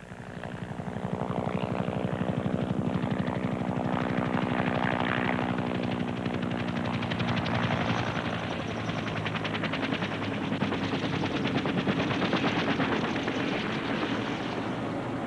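Military helicopter making a practice power-off landing (autorotation) onto a grass field. Its rotor blades give a rapid, steady chopping beat over a steady engine tone.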